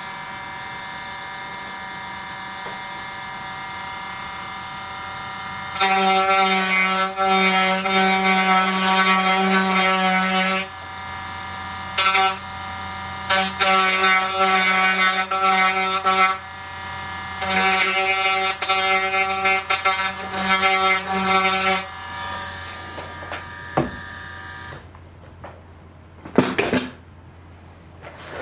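Handheld rotary tool running steadily at high speed, louder and harsher in three spells of a few seconds each as the bit grinds a slot wider in the carbon wing panel's root. It stops about 25 seconds in, followed by a couple of light knocks.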